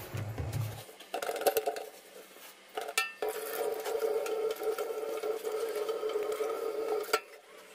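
Scrubbing and handling at a stainless steel kitchen sink, then from about a second in tap water runs steadily into the steel basin while a scouring pad rubs it, with a couple of sharp clicks; the water stops near the end.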